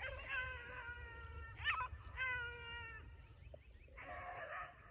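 Beagles baying as they run a rabbit, heard faintly: long drawn-out howling bawls following one after another.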